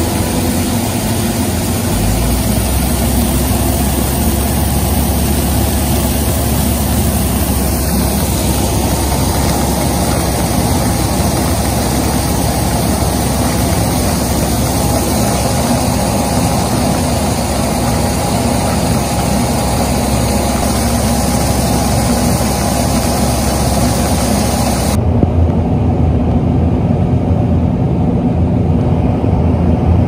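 Grain dryer and augers running at a farm grain-handling site: a loud, steady mechanical hum with a hiss over it. The hiss drops away abruptly about 25 seconds in, leaving a deeper hum.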